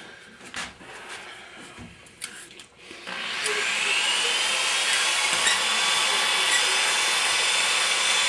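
Electric drill spinning an adjustable hone inside a valve guide of a Volvo four-cylinder cylinder head, the stone rubbing the guide bore to size it. It gives a steady rasping sound with a faint whine. A few light knocks come first, then the drill starts about three seconds in.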